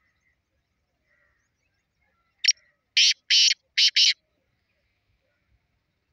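Black francolin calling once about two and a half seconds in: a short sharp note followed by four loud harsh, grating notes over about a second and a half.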